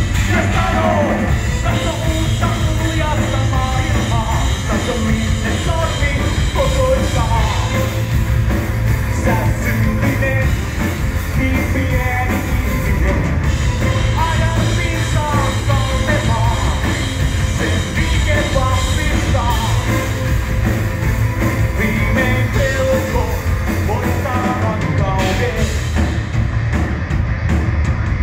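Live rock band playing: electric guitars and a drum kit, with a man singing into a microphone over them.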